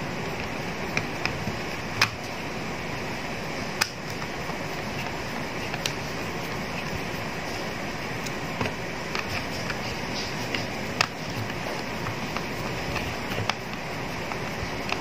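Sharp clicks and taps of an LED bulb's plastic housing being pried and worked apart, a few seconds apart, over a steady background noise.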